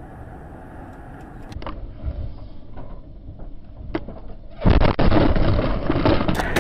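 Car road and engine noise, with a couple of sharp clicks, then a sudden much louder rush of noise about four and a half seconds in.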